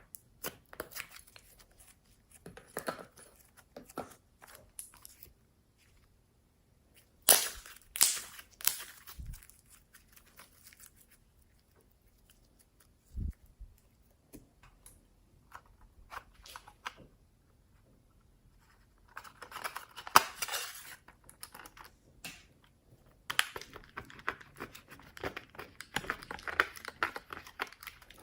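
Slime being squished and stretched by hand, crackling and clicking in bursts. There are quiet pauses between handlings, the longest in the middle, and denser crackling near the end.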